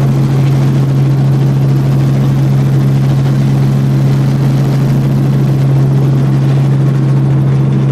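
Helicopter engine and rotor noise heard from inside the cabin: a loud, steady drone dominated by a deep constant hum, with no change in pitch while the helicopter flies low just above the grass.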